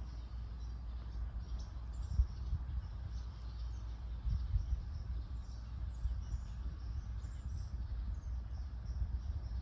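Outdoor ambience: a steady low rumble that swells a couple of times, with many faint, short, high chirps of small birds scattered through it.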